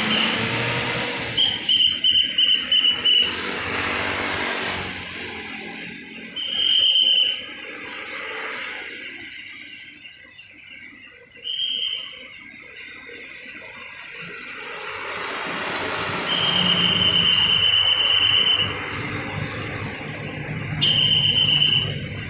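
A traffic whistle blown in a quick run of about six short blasts a second or two in, then single longer blasts a few seconds apart. Vehicle traffic and a steady hiss, typical of rain on the road, run underneath.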